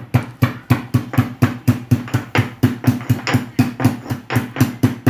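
A piece of fresh ginger being pounded in a mortar with a pestle: steady, rhythmic strikes, about four or five a second.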